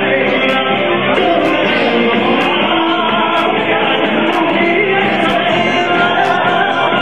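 Upbeat music with sung vocals and a steady beat of about two strokes a second.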